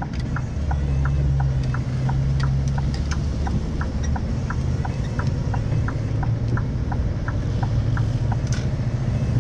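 Lorry's diesel engine droning steadily, heard from inside the cab, with a regular light ticking about three times a second.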